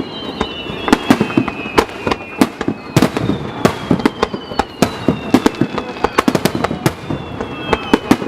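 A fireworks display going off in a rapid barrage: many sharp bangs several times a second, with a few whistling tones falling slowly in pitch over the bangs.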